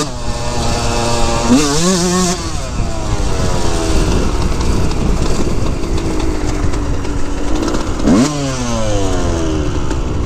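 2003 Yamaha YZ125 single-cylinder two-stroke engine under way: the revs rise about two seconds in, then wind slowly down as the bike rolls off the throttle. A quick sharp rev about eight seconds in, then the pitch falls again as the bike slows.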